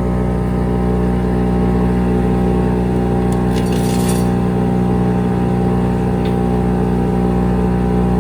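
5-inch wood chipper's engine running steadily under load as buckthorn brush is chipped, with a short burst of higher crackling noise about three and a half seconds in.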